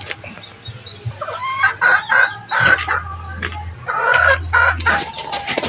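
Roosters crowing, two long crows about two seconds apart, with some clucking around them.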